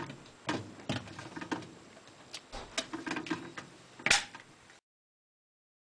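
Plastic clicks and rattles as the dispenser and its lock ring are worked loose and pulled up off a Kenmore washer's agitator, with a sharper click about four seconds in. The sound then cuts off suddenly.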